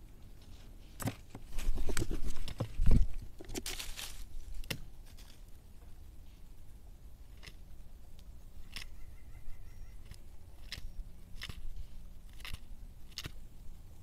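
Small animals moving in dry leaf litter: crunching, rustling and sharp scattered clicks. The loudest stretch is a burst of crackling with a low thump about two to three seconds in, followed by single clicks roughly once a second.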